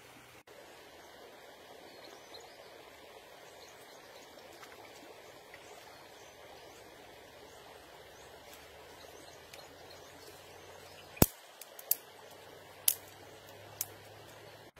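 Faint steady outdoor background, then near the end four sharp cracks, a second or less apart, of dry firewood sticks being broken up.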